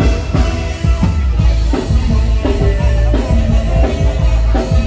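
Loud band music with a steady drum-kit beat and heavy bass.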